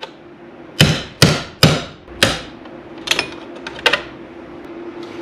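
Claw hammer striking a screwdriver held against the side of a steel electrical sub-panel enclosure, driving out a knockout. Four hard metallic blows come within about a second and a half, followed by a few lighter taps.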